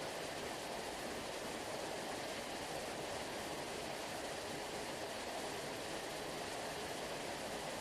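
Sea surf rushing in an even, unbroken wash, like a waterfall, with no separate wave breaks standing out.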